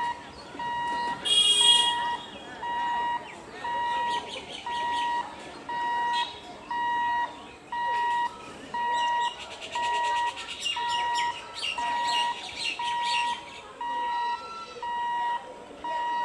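An electronic alarm beeping about once a second, each beep a steady high tone just over half a second long, with birds chirping over it. A brief, loud, shrill call cuts in about a second and a half in.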